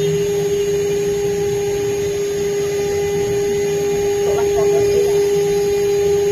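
Five-axis CNC engraving machine running, its electric spindle giving a steady whine over machine noise.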